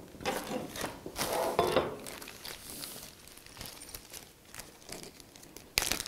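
Small clear plastic parts bag crinkling as it is handled to be opened: irregular rustles, strongest in the first two seconds, then softer, with a brief louder crackle near the end.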